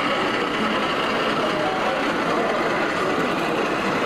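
Model train cars rolling past close by on the track, a steady rumble of their wheels on the rails.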